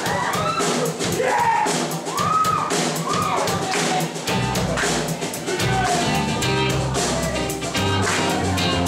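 Live band playing a pop-rock song: a lead voice sings over drums ticking out a steady beat, and bass and fuller accompaniment come in about halfway.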